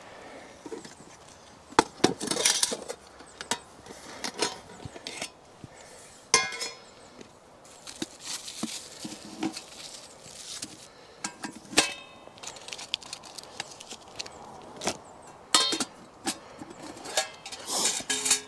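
Stainless steel camp cook pots clinking and knocking as they are handled and set down on a bamboo chopping board, some knocks ringing briefly, with rustling of plastic food wrapping in between. The knocks come irregularly throughout.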